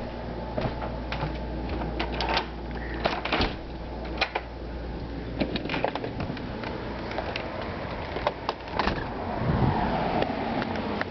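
Scattered clicks and knocks of handling and movement over the steady low hum of a running window air conditioner.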